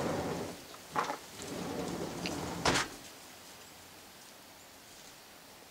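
Chicken-feed container being opened and shaken. There are two sharp knocks, about a second in and just before three seconds in, with rattling clatter around them, then it goes quiet.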